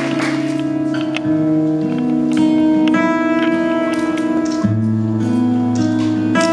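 Acoustic guitar playing the instrumental intro of a song: ringing chords that change about every second.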